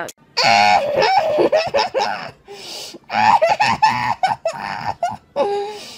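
A young woman laughing.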